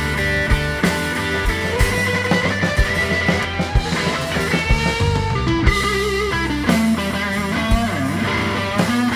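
Live blues band playing with no singing: electric guitar lead lines with bent, sliding notes over bass guitar and a steady drum beat.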